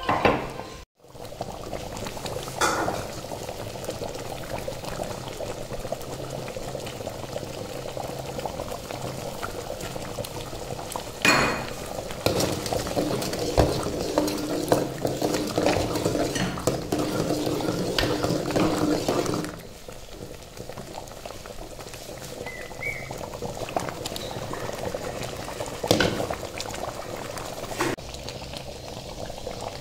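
Thick kadai paneer gravy simmering and bubbling in a pan, stirred with a metal spoon that clicks against the pan a few times. The stirring is loudest through the middle, then the bubbling goes on more quietly.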